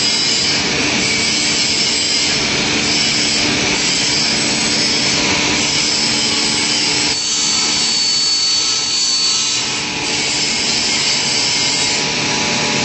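Woodworking machine running steadily with a high hissing noise, typical of cutting wood. For a few seconds about seven seconds in the sound changes, and a thin high whine comes in.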